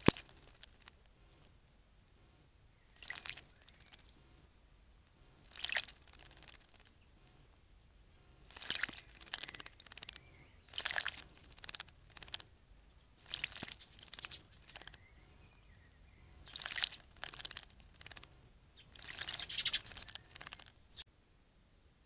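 Small songbird bathing in a shallow bird bath, splashing and fluttering its wings in the water in short bursts, about a dozen of them, coming more often in the second half.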